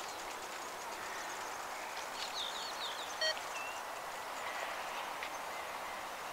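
Steady distant jet engine noise from a Boeing 737 MAX 8's CFM LEAP-1B engines as the airliner rolls out on the runway just after touchdown. A few quick bird chirps come about two seconds in, and a short beep follows a second later.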